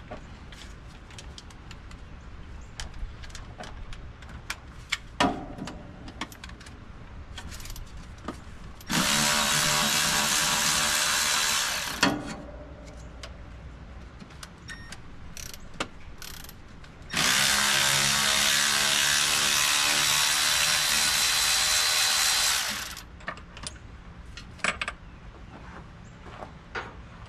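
Handheld power drill running in two steady bursts, about three seconds and then about six seconds, each a level motor whine. Light clicks and clanks of tools and metal parts come between them.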